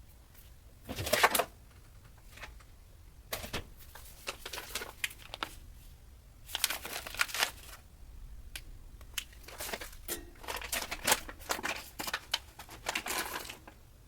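Intermittent rustling, crinkling and light clattering of things being handled, in short irregular bursts, with no steady buzz.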